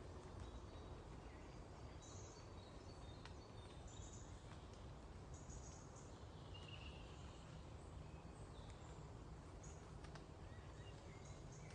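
Faint songbirds chirping: scattered short high-pitched calls and twitters, one slightly longer call about halfway through, over a steady low background noise.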